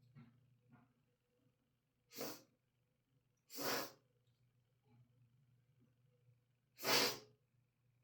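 A person sneezing three times in quick succession, each sneeze short and sharp, the third the loudest. It is a sneezing fit brought on by Chhinkni sneezing powder and a feather tickling the nose.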